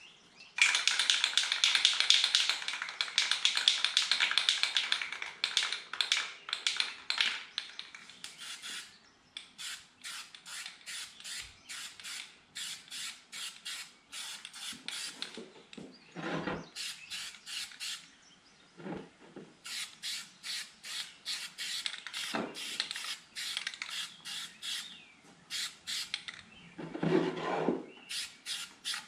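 Aerosol spray-paint can hissing in a long spray for about the first seven seconds, then a long run of short clicks, about two or three a second, from the can being worked and shaken between passes.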